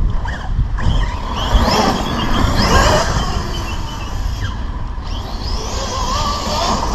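Large electric Arrma RC car's brushless motor whining up and down in pitch several times as it is throttled on and off, with wind rumbling on the microphone.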